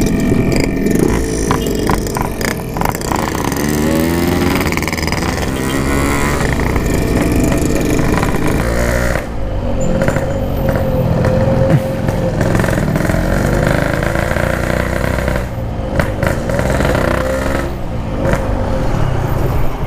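Yamaha RX-King two-stroke single-cylinder motorcycle engine, fitted with an aftermarket PK 3 expansion exhaust, revving up and dropping back again and again as the rider accelerates through the gears.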